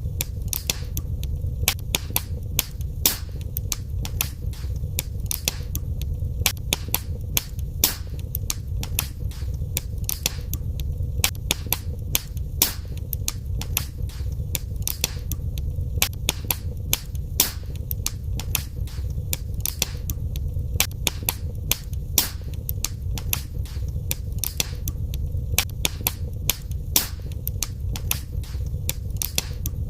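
Wood fire burning in a fireplace: frequent sharp crackles and pops at irregular intervals over a steady low rumble of flame.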